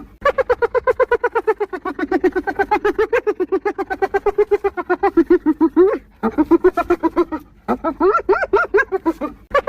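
Spotted hyena giggling: a rapid run of high, pulsed whooping notes, about eight a second, in three bouts broken by short pauses about six seconds in and again a little later.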